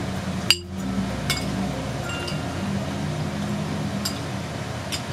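Metal spoon and fork clinking against a ceramic plate while scooping food: several sharp clinks with a brief ring, the loudest about half a second in and a quick pair near the end.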